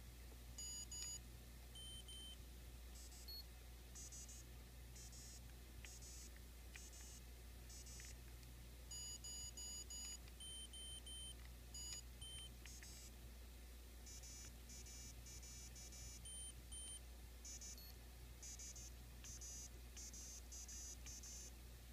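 Faint, short electronic beeps from a small Dreamcast VMU speaker inside a modified NES controller, driven by an ATtiny85 microcontroller, sounding as its buttons are pressed. They come in quick runs of notes at changing pitches, some single, some in rapid series.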